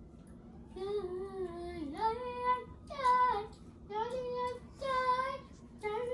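A child singing a tune in a high voice, a string of short held notes with small slides between them.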